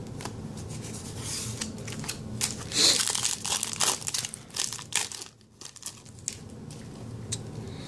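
Foil wrapper of a Magic: The Gathering booster pack being torn open and crumpled in the hands: a run of crinkles and rips, busiest in the middle, with a brief lull about five and a half seconds in.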